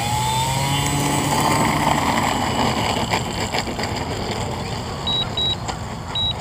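Electric motor and propeller of an AeroBeez Extra 330 foam RC plane whining, rising in pitch over the first second or two as the throttle opens for the takeoff roll, then running steadily as it climbs away, with wind noise on the microphone.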